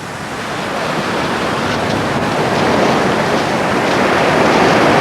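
Steady rush of surf breaking on a shore, growing gradually louder.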